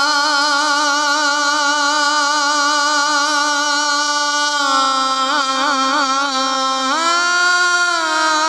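A man singing a naat unaccompanied, drawing one syllable out into a long melismatic phrase. He holds a note, drops in pitch about halfway with quick wavering ornaments, then rises to another held note a little before the end.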